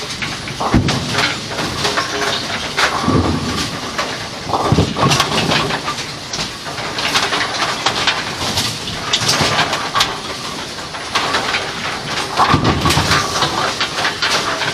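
Kegel Pin Shine bowling pin cleaning machine running with a continuous scrubbing and churning noise. Over it come irregular knocks and rubbing as a wet plastic-coated pin is lifted out of the foam and wiped with a cloth rag.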